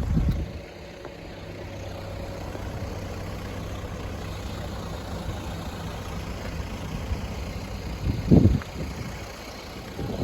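A road vehicle's engine running steadily with a low hum, with a short low thump at the start and a louder one about eight seconds in.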